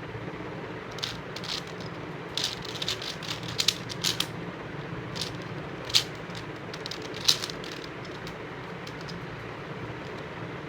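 Layers of a 5x5 Rubik's cube, a beginner's cube, being turned by hand: bursts of plastic clicking and rattling, with the sharpest clacks about six and seven seconds in, over a steady background hum.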